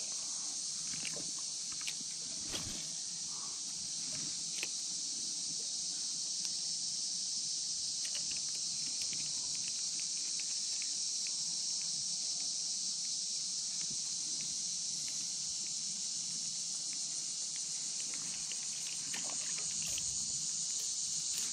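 A steady, high-pitched chorus of insects droning in the riverside trees. Scattered faint clicks and knocks come from the fishing rod and spinning reel being handled.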